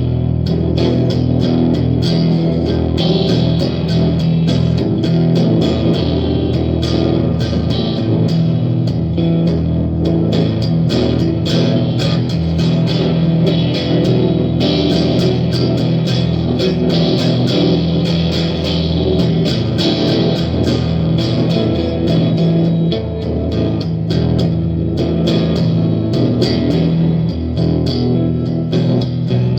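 Gretsch electric guitar being played continuously, a steady stream of picked notes over sustained low tones.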